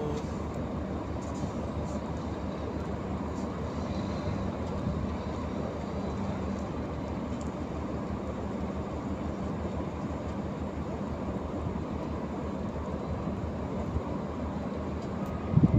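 Steady low rumble of a ship's diesel machinery running. A short burst of louder low noise comes near the end.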